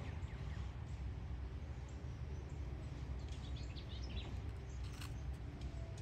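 Outdoor ambience: a steady low rumble with faint bird chirps about three to four seconds in, and a single short click about five seconds in.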